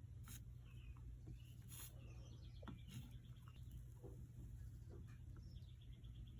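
Near silence: a steady low hum, with a few faint ticks and small high chirps.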